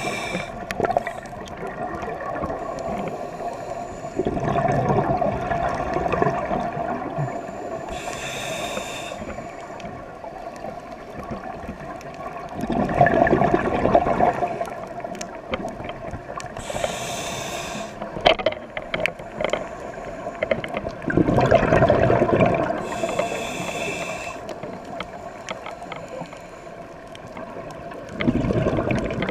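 Scuba diver's regulator breathing underwater: a short hissing inhale, then a longer rumbling burst of exhaled bubbles, repeating about every eight seconds.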